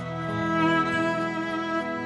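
Slow, sad background music of long held notes. The chord changes just after the start and the music swells louder toward the middle.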